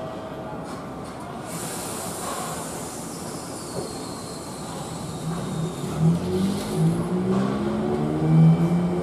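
Keifuku Randen tram car pulling away from a station: a high hiss about a second and a half in, then its motor hum grows louder and climbs in pitch from about five seconds in as it accelerates.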